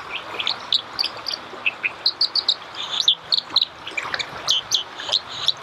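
White-throated dipper singing: a rapid, irregular run of short, sharp, high-pitched notes, each dropping quickly in pitch, over a steady background hiss.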